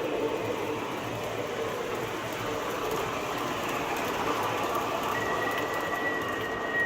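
MTH O-scale R-40 Slant subway model on three-rail track, a steady run of train noise from the model and its onboard sound system. A thin steady high tone joins about five seconds in.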